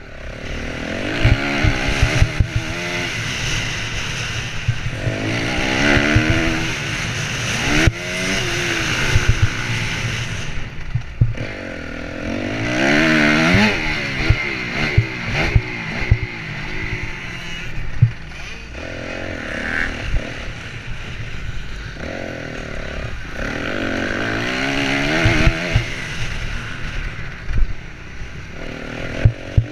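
Honda CRF250R four-stroke single-cylinder motocross engine revving up and dropping off again and again as it is ridden around a dirt track. Rushing noise and sharp knocks and clatter run under the engine.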